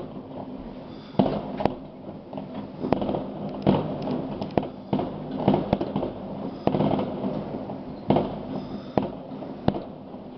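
Aerial fireworks bursting: sharp bangs about once a second at irregular intervals over a steady background rumble.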